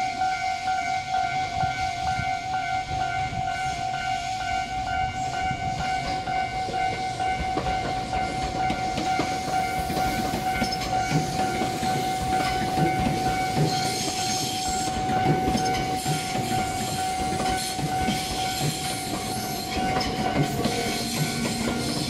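A Japanese level-crossing warning bell keeps ringing while a Tobu Ryomo limited express electric train pulls out of the station and passes. The train's running noise and wheel clatter over rail joints build from about halfway through.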